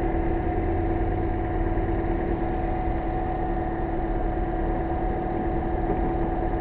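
Toyota Corolla's engine idling steadily with a constant tonal whine over it, left running so the alternator recharges a weak battery.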